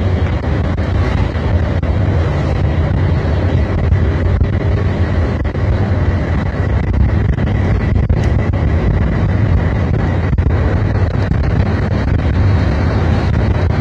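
Steady engine drone and road rumble heard inside the cabin of an intercity bus travelling at speed on a highway.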